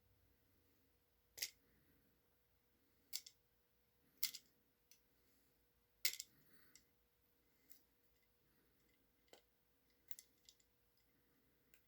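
Scattered sharp clicks and snips, about nine in all, of hand tools working a clear plastic sleeve off a chainsaw fuel line, in otherwise near silence.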